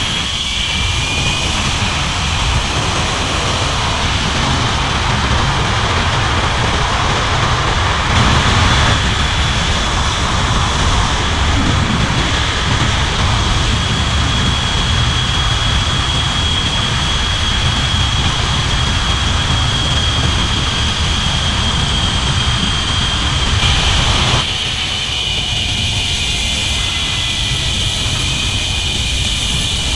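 Rushing wind buffeting the microphone of a rider speeding down a long zip line. Over it, the trolley's pulleys run along the steel cable with a high, steady whine that stops a few seconds before the end.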